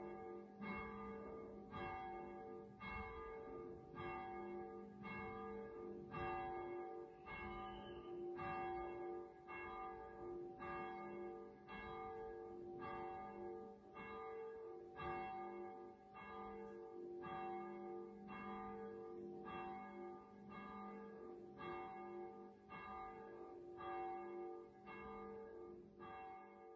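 A church bell tolling, struck about once a second, each stroke ringing on into the next.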